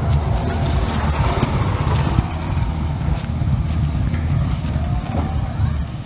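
A small engine running with a steady, uneven low rumble. A few faint high chirps come about two seconds in.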